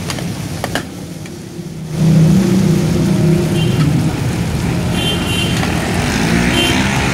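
Metal spatulas clicking and scraping in a large frying pan of noodles, then from about two seconds in a loud, steady vehicle engine running takes over, with a few short high-pitched squeaks on top.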